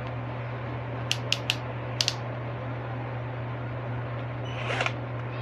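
Five sharp plastic clicks in quick succession as the controls of an Ingco 12V cordless drill are worked by hand, then a brief scrape near the end, over a steady low hum.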